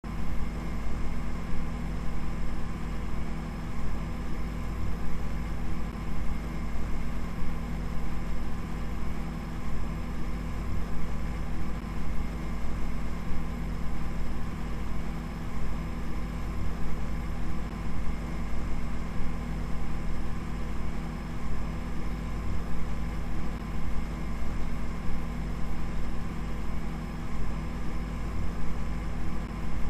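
A steady, low machine-like hum with a deep rumble and a few constant higher tones over it.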